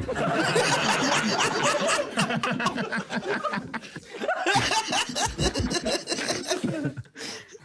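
Loud laughter from several men at once, which dies down near the end.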